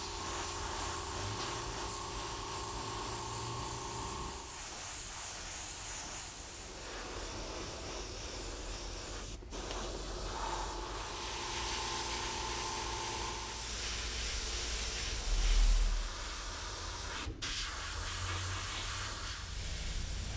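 Airbrush spraying paint: a steady hiss of compressed air with a low hum beneath, and a faint steady tone joining the hiss twice. The hiss breaks off for an instant twice, and a dull low thump stands out a little past the middle.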